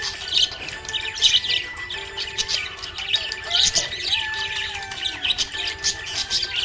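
Small pet parrots chirping and chattering in quick, overlapping calls without a break, over steady held tones.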